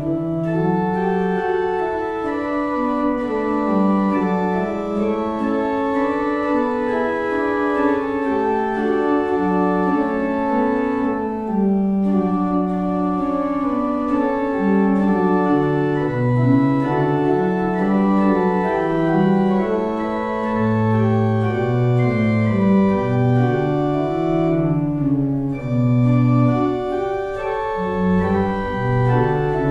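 Organ playing slow, sustained chords as a pre-service prelude, with deeper bass notes joining about two-thirds of the way through.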